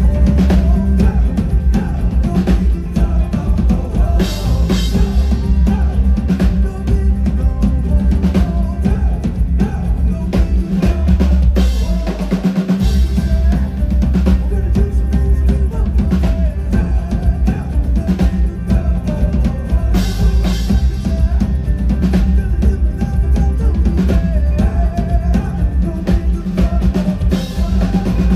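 Live pop-rock band playing loudly through a PA, with a heavy kick drum and bass under snare and cymbal hits in a steady beat. The low end drops out for about a second roughly twelve seconds in, then comes back.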